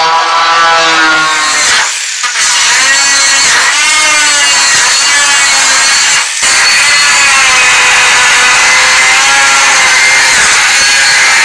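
Angle grinder with a cut-off wheel cutting through thin sheet metal: a loud, high whine whose pitch sags and recovers as the disc bites. It eases off briefly about two seconds in and again around six seconds in.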